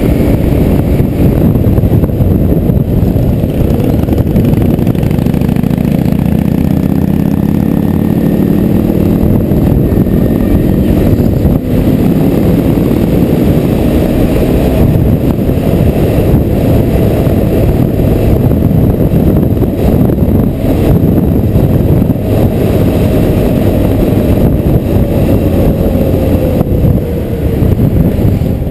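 Motorcycle engine running at road speed throughout, loud and continuous. Its note climbs under acceleration between about six and ten seconds in.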